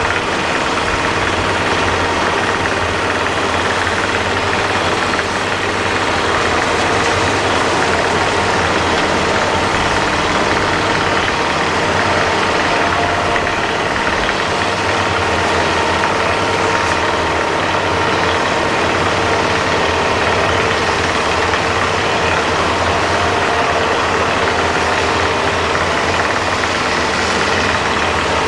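Heavy diesel construction machinery running steadily with an unbroken engine drone. The machines in use are a rotary drilling rig and a tracked loader.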